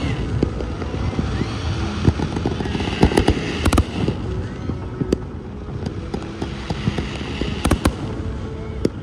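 Fireworks display: aerial shells bursting in a rapid, irregular string of bangs over a continuous rumble, with the bangs bunching about two seconds in, between three and four seconds, and just before eight seconds.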